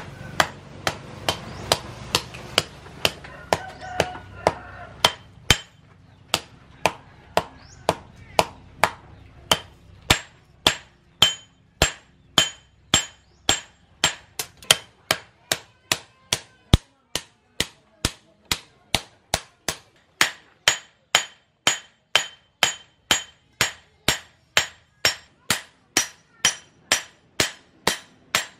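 Hammer blows on a hot machete blade on a steel anvil post, struck in a steady rhythm of about two blows a second. From about ten seconds in, each blow rings with a high metallic ping as the blade cools from glowing orange to grey.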